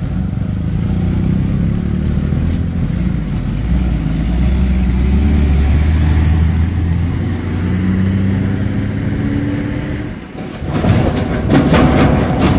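Heavy-truck diesel engines and a motorcycle running past at close range, a steady low engine drone. About eleven seconds in, an LPG tanker's multi-axle trailer rolls by close, with loud tyre noise and rapid rattling clatter.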